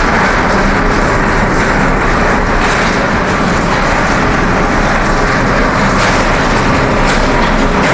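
Aluminium dross processing machinery running, a loud, steady industrial din that does not change.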